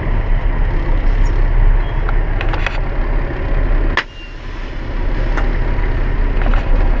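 Heavy vehicle engine running steadily with a low rumble and occasional clicks and rattles. The sound drops suddenly about four seconds in, then builds back up.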